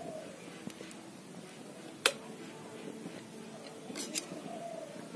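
Steel ladle clinking against a metal kadai and a steel bowl while fish curry is ladled out. There is one sharp clink about two seconds in and two lighter clinks about four seconds in.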